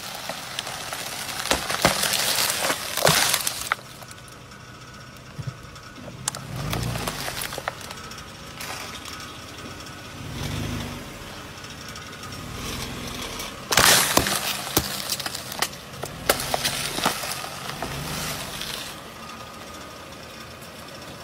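A car tyre rolling over and crushing crunchy, brittle objects: repeated cracking and crackling. It comes in bursts, loudest in the first few seconds and again about fourteen seconds in, with a low rumble between.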